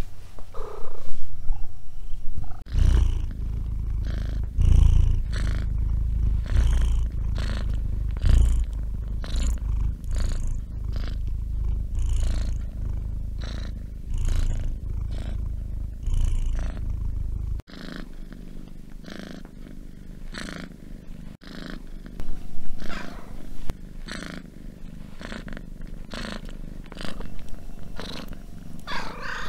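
Domestic cats purring close up, a steady rumble that swells with each breath about once a second. A deep, loud purr gives way about two-thirds through to a quieter, lighter one.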